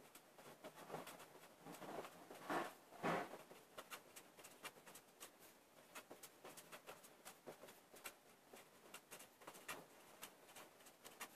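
Pen writing on paper: faint, quick scratching strokes in runs, with two louder strokes about two and a half and three seconds in.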